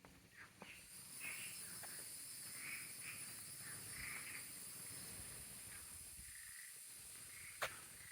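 Wetland frogs giving short, repeated calls, about one or two a second, over a steady high-pitched insect drone that comes in about a second in. A single sharp click sounds near the end.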